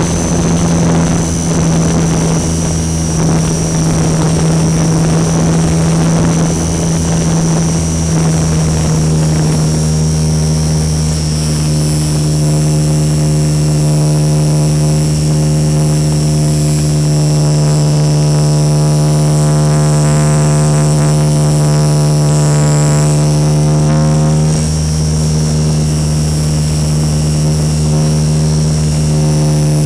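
RC model Super Cub's motor and propeller running in flight, heard from the onboard camera: a steady drone with a high whine above it. For the first several seconds it is rough, with rushing air noise over it, then it settles to a smooth, even pitch.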